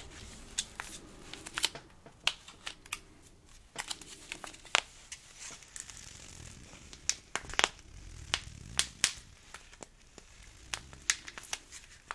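A small plastic pouch of Epsom bath salt squeezed and crinkled in the hands close to the microphone: sharp, irregular crinkles and crackles.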